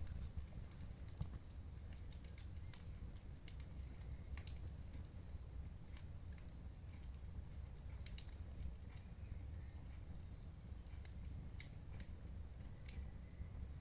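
Wood fire in a fireplace crackling: irregular sharp snaps and pops over a steady low rumble of the flames.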